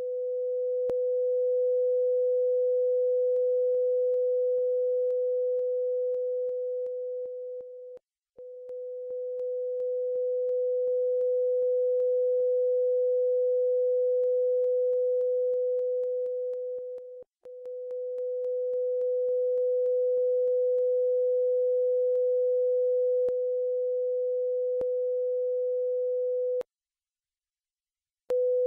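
A steady 500 Hz sine tone from the BeeOne tone generator, with its left–right phase difference being adjusted. It cuts out briefly about 8 and 17 seconds in, fading back in each time, and stops shortly before the end.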